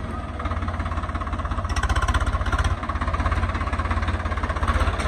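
Swaraj 855 FE tractor's three-cylinder diesel engine running as the tractor drives slowly over loose sandy soil, with an even pulsing beat. The level dips briefly a little past halfway, then picks up again.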